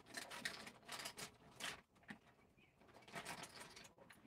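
Faint, irregular clicks and taps of fingers tapping and handling a smartphone, busiest in the first two seconds and then thinning out.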